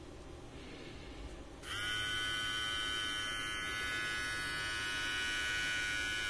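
HTC rechargeable hair trimmer's DC motor switched on about a second and a half in, spinning up briefly and then running at a steady high-pitched buzz. It cuts off suddenly at the end.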